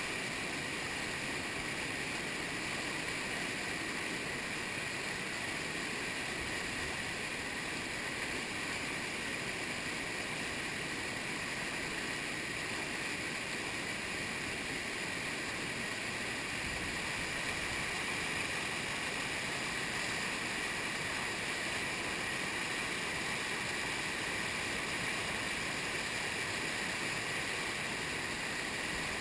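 Steady rush of whitewater: river water pouring over a low sloping spillway and churning in the foaming wave below, heard from right at the water's surface.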